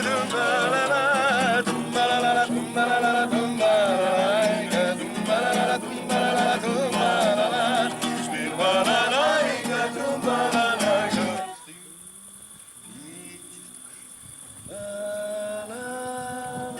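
A folk song sung with a wavering vibrato voice over sustained accompaniment, ending about eleven seconds in. After a quieter pause, held steady instrumental notes begin near the end.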